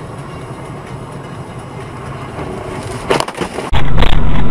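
Steady vehicle and road noise recorded by a dash cam, broken by a short clatter of sharp knocks about three seconds in. Near the end it gives way abruptly to a much louder, muffled low vehicle rumble.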